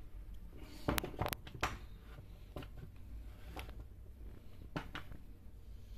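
A few scattered light clicks and knocks as the opened plastic housing and parts of an electric chain sharpener are handled on a workbench, over a faint low hum.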